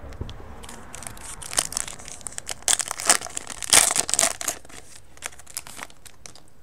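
Foil wrapper of a baseball card pack crinkling as it is picked up and torn open, a run of crackles loudest around the middle, tailing off to a few light ticks near the end.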